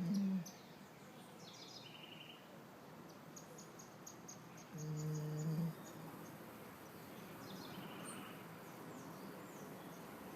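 Pit bull snoring in deep sleep: a low, pitched snore lasting about a second, one ending just after the start and another about five seconds in. Small birds chirp and whistle in short high notes throughout.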